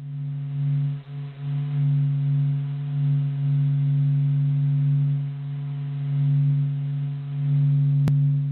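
Space-sound sonification played as Mercury's 'sound': a steady low hum with a stack of overtones over a faint hiss. A single sharp click comes about eight seconds in.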